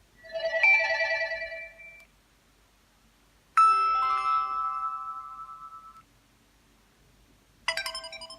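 Nokia 2760 message alert tones played one after another from the phone's speaker. First a short pulsing electronic tone, then a chime-like tone that rings out and fades over about two seconds. A third tone starts sharply near the end.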